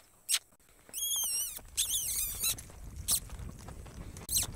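A rider's kissing and clucking cues to a horse: short sharp clicks, and about a second in two longer squeaky kisses with a wavering pitch. The horse moves off at a lope with dull hoofbeats in the arena dirt.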